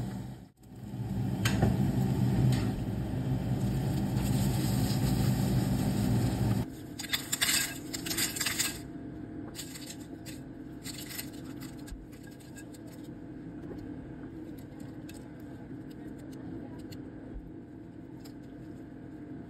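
Eggplant and potato cubes sizzling in hot oil in a frying pan over a steady low hum. About seven seconds in this cuts off, and a spoon clinks and scrapes against a glass bowl, first in a quick cluster and then in scattered light taps.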